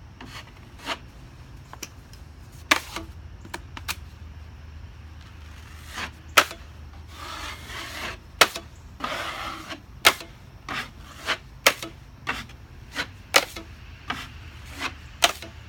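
A metal drywall knife spreading and scraping joint compound over a wall patch. A long rasping scrape comes about halfway through and another a second or two later, amid many sharp irregular clicks and taps of the knife blade.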